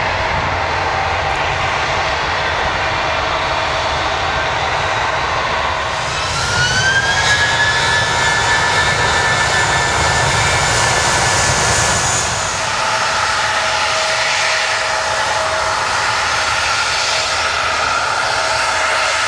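Turbofan jet engines of taxiing airliners, including the CRJ-900's GE CF34-8C5s, whining steadily at taxi power. About six seconds in, a passing jet's higher whine rises, holds for about six seconds, then drops away.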